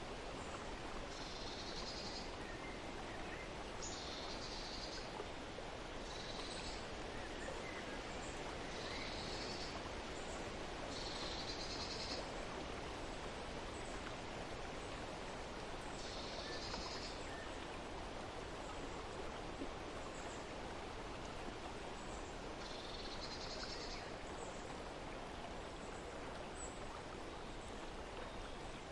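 A bird's short high call, repeated about every two to three seconds, over a steady outdoor background hiss.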